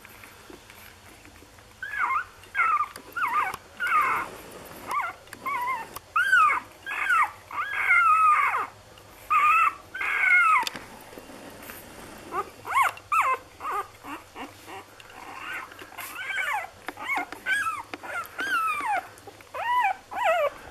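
Six-day-old Lagotto Romagnolo puppies whimpering and squealing: a quick run of short high-pitched squeaks, many falling in pitch, starting about two seconds in, with a brief lull midway.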